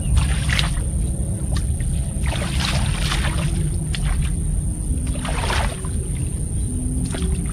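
Water splashing and sloshing in several short bursts as a fishing net is worked in a flooded rice paddy, over a steady low rumble.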